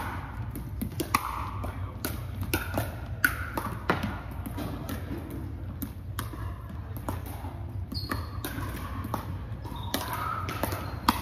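Pickleball rally: sharp pops of paddles striking a plastic pickleball and the ball bouncing on a hardwood court, coming irregularly about once a second.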